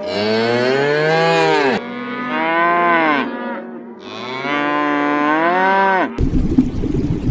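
Three long, moo-like calls from a large animal, each rising and then falling in pitch. About six seconds in, they cut off suddenly to a steady rushing noise.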